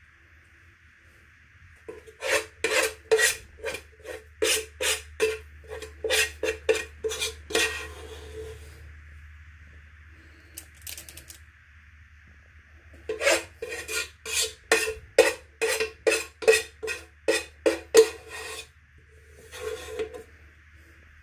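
A spoon scraping up sticky no-bake cookie mixture in quick strokes, two to three a second. It comes in two runs of about six seconds each, with one short scrape near the end.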